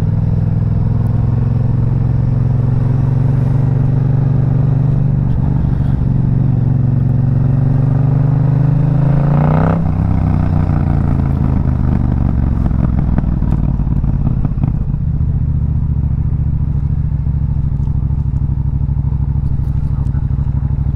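Yamaha MT-07 parallel-twin engine with an aftermarket Dominator exhaust, heard from the rider's seat while riding. The engine note climbs steadily for about ten seconds, drops sharply, then runs on at a lower, steady note as the bike slows.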